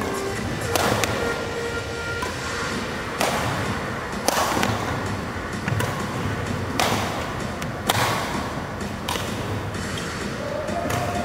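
Badminton rally: rackets striking the shuttlecock, seven sharp hits roughly a second apart, each echoing in a large hall.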